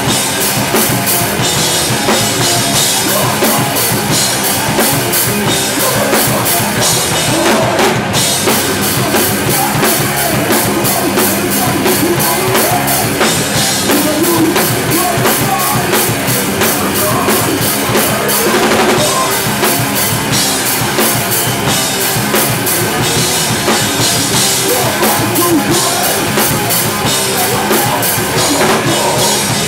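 Hardcore punk band playing live at full volume: drum kit with bass drum, snare and cymbals, together with electric guitars, heard from right beside the drummer.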